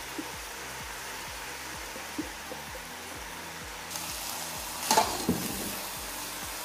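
Shredded cabbage and carrot sizzling steadily in a frying pan. About four seconds in, a metal spoon stirs through the vegetables, scraping the pan with a couple of sharp knocks near the five-second mark.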